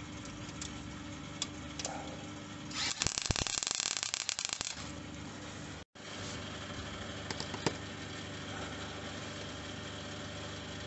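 MIG welder arc crackling and spitting for about two seconds as a weld is laid on a car's outer sill panel, starting about three seconds in. A steady machine hum runs underneath.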